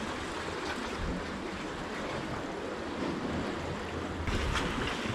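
Steady wash of sea waves among concrete breakwater blocks, with some wind on the microphone; it grows a little louder about four seconds in.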